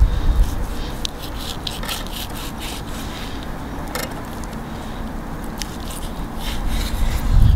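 A knife scraping and cutting along the rib bone of a raw beef cowboy (bone-in rib) steak on a wooden cutting board, in many short, quick strokes as the fat and meat are trimmed from the bone. A low rumble at the start and again near the end.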